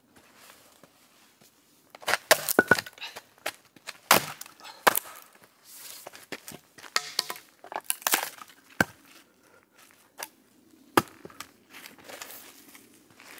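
Irregular clinks and knocks of hard objects being handled, starting about two seconds in, some strikes ringing briefly.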